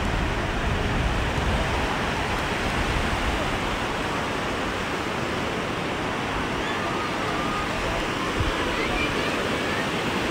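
Steady beach ambience: an even wash of surf, with people talking in the background.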